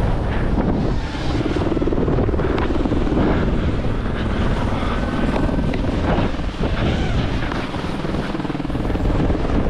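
FPV drone's propellers buzzing in flight, the buzz shifting up and down in pitch as the throttle changes.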